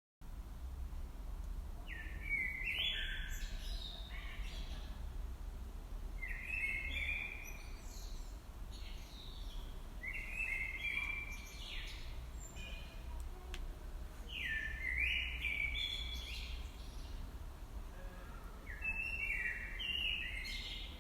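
A songbird repeating the same short chirping phrase about every four seconds, five times, over a steady low rumble.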